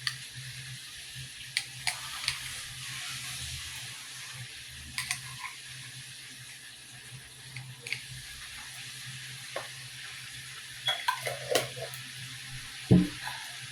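Kitchen utensil sounds while coleslaw ingredients are spooned and stirred: scattered clinks and knocks of a spoon against a jar and bowl over a steady hiss, with a cluster of knocks a little after the middle and one heavier thump near the end.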